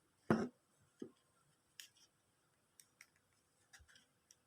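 Small hard objects being handled: one sharper knock about a third of a second in, then a scattering of faint, irregular clicks and taps.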